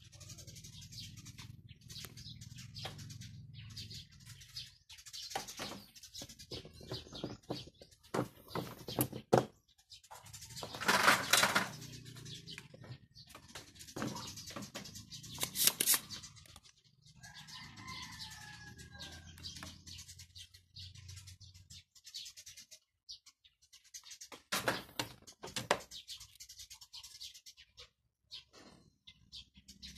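Desoldering a component from a stereo's circuit board: scattered clicks and taps of the tools on the board, with two longer hissy bursts about eleven and fifteen seconds in, over a low hum.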